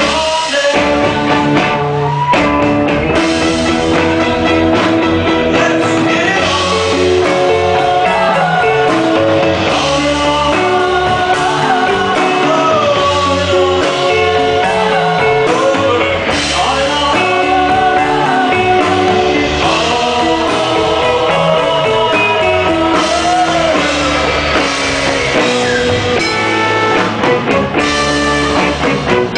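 Live band playing a rock song, with a man singing lead and women singing backing vocals over guitar.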